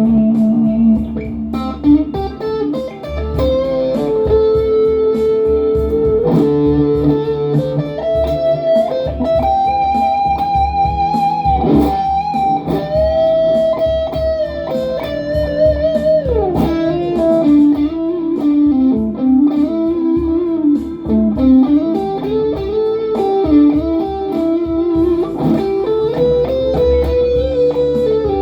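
Les Paul Hurricane electric guitar playing a slow, feel-driven blues-style lead through delay and reverb pedals: single sustained notes with string bends, a slide down about halfway through, and wide vibrato on held notes.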